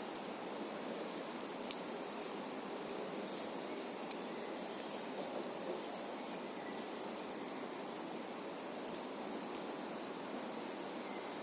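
Two sharp clicks, about two seconds apart, and a few fainter ticks from a Victorinox Farmer's reamer being worked in a hole bored through wood, over a steady background hiss.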